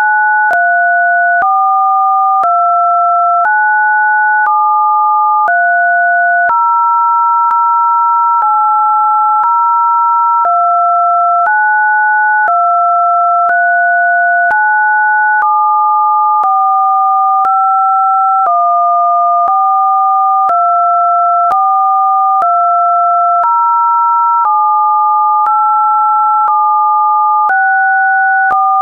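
Two electronically generated pure tones sounding together, one lower and one higher, each stepping to a new pitch every second or two, with a faint click at each step.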